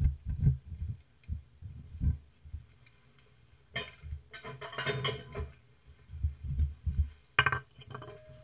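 A cat licking and chewing wet canned cat food off a clear plastic box just above the microphone: irregular soft low thumps as its tongue and jaw knock the plastic, with louder crackly bursts of licking about four seconds in and again near the end.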